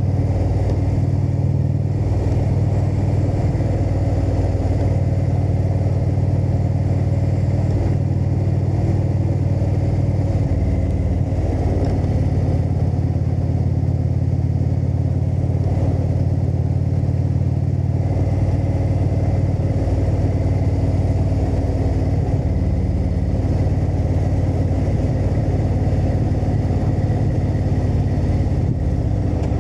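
Indian Thunder Stroke V-twin motorcycle engine running steadily at cruising speed, its pitch shifting a little now and then as the throttle changes.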